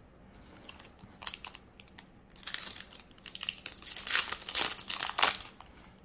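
Foil Yu-Gi-Oh! booster-pack wrapper crinkling as it is handled, in a few faint ticks at first, then a busier run of crackling over the second half.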